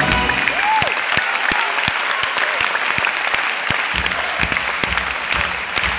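A large concert-hall audience applauding, many hands clapping steadily.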